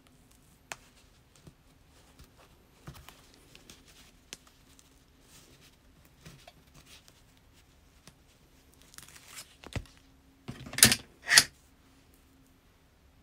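Tape ripping twice in quick succession, about half a second apart, near the end. Before that come light taps and rustles of crafting materials being handled on a table.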